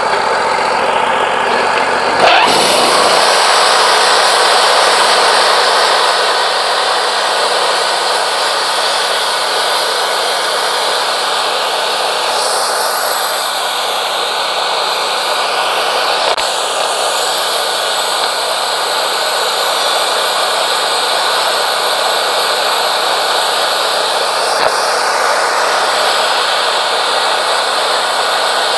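Wood-Mizer LT40 Wide band sawmill running, then about two seconds in the band blade enters the yellow pine cant and saws steadily through it, the hissing cut sound laid over the engine.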